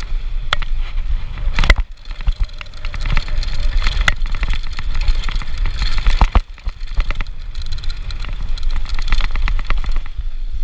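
Downhill mountain bike ridden fast over a dirt and gravel trail: wind buffets the action-camera microphone, and the tyres crunch while the bike rattles and clacks over bumps. There are hard knocks about two seconds in and again about six seconds in. Near the end the noise smooths out as the bike rolls onto pavement.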